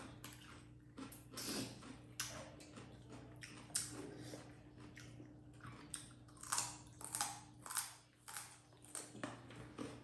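Close-miked chewing and eating sounds from people eating dhido and chicken: short, irregular mouth clicks, about one or two a second.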